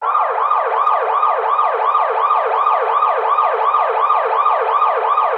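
Electronic police siren in fast yelp mode: a loud pitch sweep repeating about four times a second, starting abruptly.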